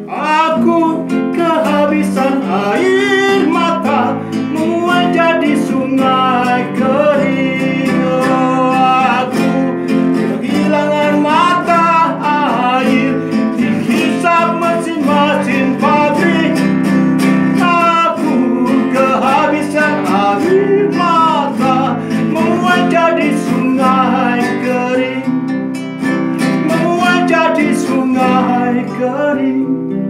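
A man singing to his own acoustic guitar accompaniment, live at a studio microphone.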